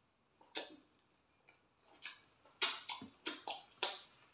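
Close-miked eating sounds of two people chewing fufu with soup: a string of short, sharp wet smacks and clicks from lips and mouths, growing louder toward the end.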